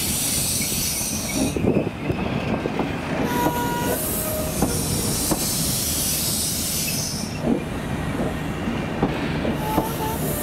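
Mark 3 passenger carriages rolling past on curved track: wheels squealing and screeching on and off, with short whistling tones and scattered clicks as the wheels cross rail joints.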